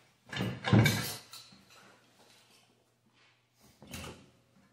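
Handling clatter of metal kayak-cart parts: a loud rattling clunk about a second in, then a shorter clunk near the end as a transom wheel on its stainless steel leg is set down in the plastic kayak hull.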